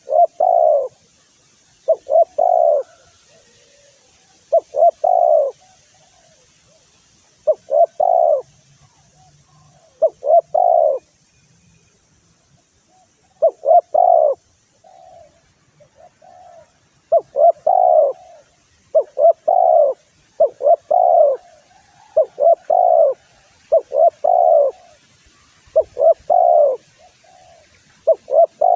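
Spotted dove (tekukur) cooing: short phrases of two or three coo notes, repeated about every two seconds and coming closer together in the second half. It is a lure call meant to provoke rival doves.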